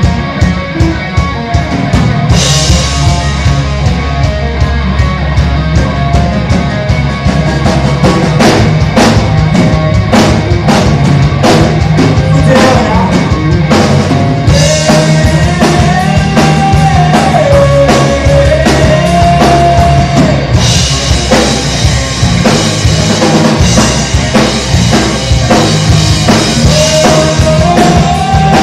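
Live rock band of drums, electric bass and electric guitar playing loudly, with a steady drum beat; cymbals come in about two seconds in, and a held melodic line sliding between two pitches joins around halfway.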